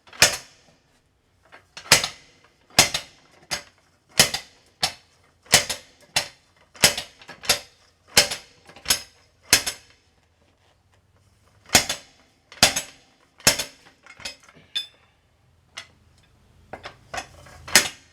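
Hammer blows on a hand bead breaker, working a tire's bead loose from the rim: sharp metallic clanks, about one and a half a second. The blows stop for about two seconds in the middle, three more heavy blows follow, then a few lighter taps.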